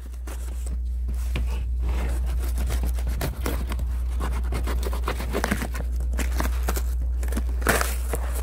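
Utility knife slicing through layers of packing tape on a cardboard parcel, with irregular crackling and scraping as the tape and paper label are cut and torn. A steady low hum runs underneath.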